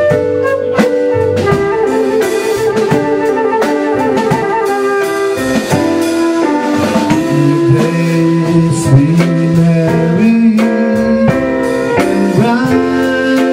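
Small live band playing: a flute leads over keyboard and a drum kit.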